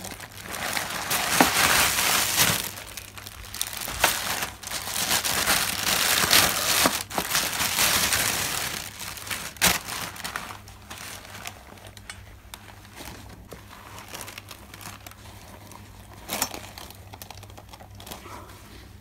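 A clear plastic bag crinkling and rustling as it is handled and opened. The sound is loud and dense for the first nine seconds or so, then becomes fainter, with scattered rustles and handling noises.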